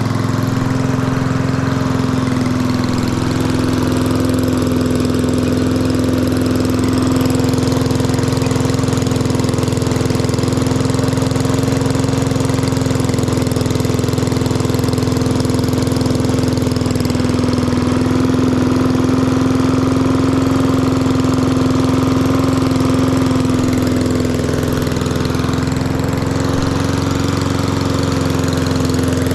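Small lawn mower engine running steadily at a constant speed through a newly fitted aftermarket muffler.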